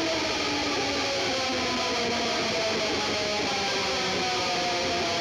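Outro music led by electric guitar, its held notes slowly sliding in pitch.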